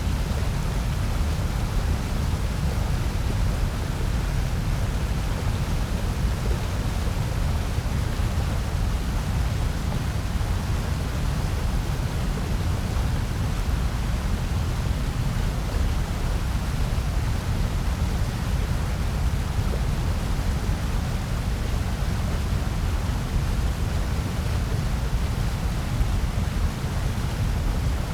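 Steady synthetic noise billed as white noise, a constant hiss with a heavier low rumble, unchanging throughout.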